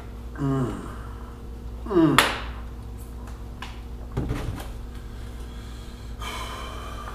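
A man groaning and exhaling in short cries that fall in pitch, the loudest about two seconds in and a higher, breathy one near the end: pained sounds from the burn of a Trinidad scorpion pepper he has eaten raw.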